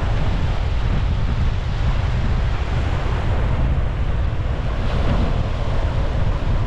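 Sea waves breaking and washing up on a beach, with wind buffeting the microphone in a steady low rumble.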